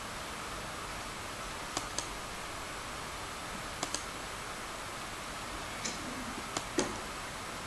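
Sharp clicks on a laptop advancing presentation slides: a quick pair about two seconds in, another pair near four seconds, then a few more near the end, over a steady background hiss.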